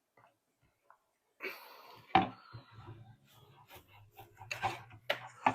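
Handling noise as the spade connectors are pulled off a speaker driver's terminals: rustling, with several sharp clicks and knocks spread through the second half.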